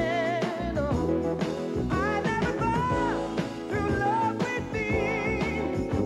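Music: a song with a wavering vocal melody over a full band, steady throughout.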